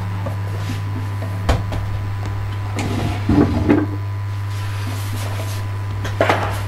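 Wooden boxes and boards being moved and lifted out of a cluttered storage space: a single knock about a second and a half in, a cluster of clatters and scrapes around three and a half seconds, and a double knock near the end, over a steady low hum.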